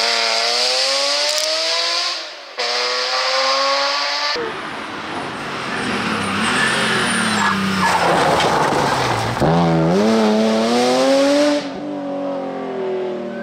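BMW Z3 M rally car's straight-six engine revving hard and climbing through the revs, in several passes that cut in and out abruptly. About halfway through, tyre noise from the car sliding through a bend covers the engine before it pulls up through the revs again.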